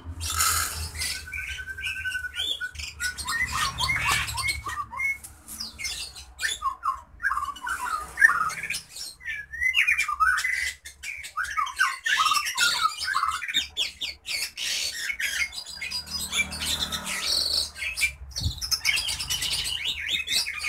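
White millet seed poured from a bag into a plastic cup, a short rattle at the start. After it, birds chirp and squawk with many short, quick calls.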